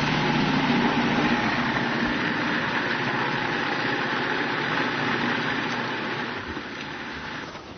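Food processor motor running steadily as it purées boiled sweet potatoes with cream, stopping near the end.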